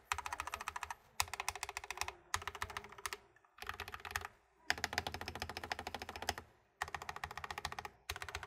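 Fast typing on a mechanical keyboard fitted with thick PBT keycaps: quick runs of keystrokes lasting about a second each, broken by short pauses.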